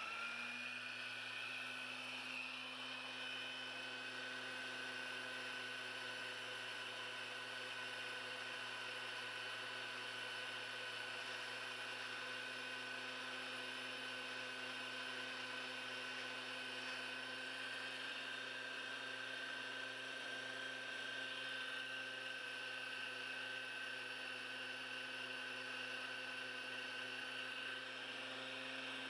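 Small bench-mounted belt sander running steadily, a motor hum with a steady whine, while the ends of a paintbrush's bristles, clamped between thin wooden guides, are sanded square against the belt.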